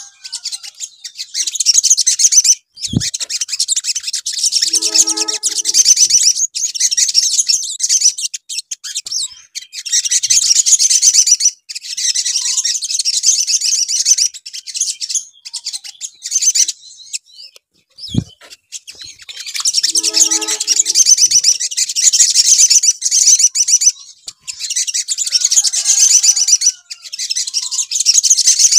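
Olive-backed sunbird (sogon) song: rapid, high-pitched twittering trills in bursts of a few seconds, separated by short breaks. The same sequence comes round again about every fifteen seconds, as a looped lure recording (pancingan) used to provoke caged sunbirds into singing.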